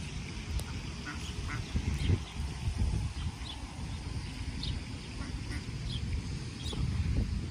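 Ducks quacking in short, scattered calls over a low steady rumble.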